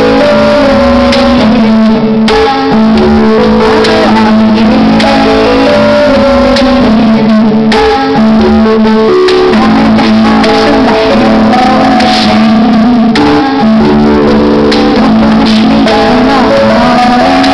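Amplified live music: a guitar-led passage of held notes in a repeating pattern, recorded very loud, close to full scale.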